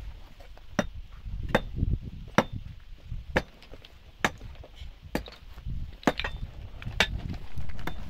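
A hand hammer striking repeatedly at a steady pace of about one blow a second: a series of sharp, evenly spaced knocks.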